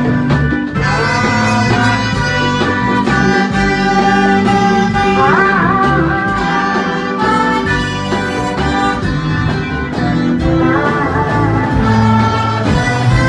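Music: instruments playing held notes over a steady bass line, with a melody that slides up in pitch about five seconds in and again near eleven seconds.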